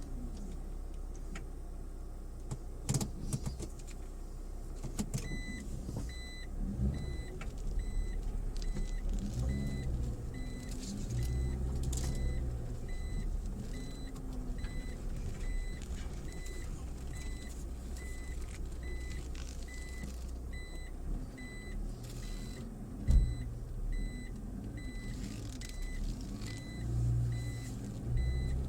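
Mitsubishi Pajero Mini reversing: its in-cabin reverse-gear warning beeper chirps about twice a second from a few seconds in, over the small engine's low running note as it revs up and down. There are a few sharp knocks from the rough ground, the loudest about 23 seconds in.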